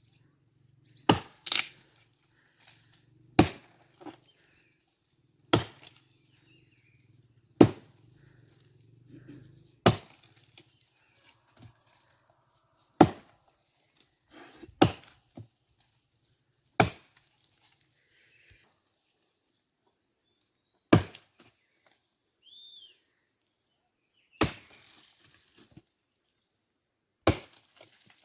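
An axe chopping dry cashew-tree wood: about a dozen sharp blows, roughly two seconds apart, with a longer pause partway through. Insects drone steadily and high-pitched behind the blows.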